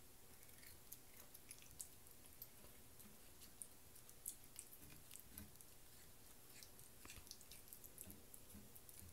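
A cat chewing and biting on a strand of dental floss: faint, irregular little clicks and mouth smacks.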